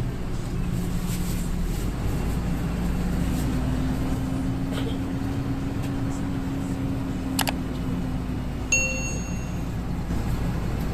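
Intercity bus running at low speed, its engine hum and road noise heard from inside the cabin. There is a sharp click about seven seconds in, then a short ringing ding about a second long near the end.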